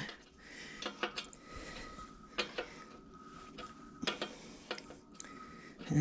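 Scattered light metallic clicks and clinks of a wrench working a motorcycle's rear axle adjuster bolt, taken off and refitted on the bolt as it is turned through a full turn.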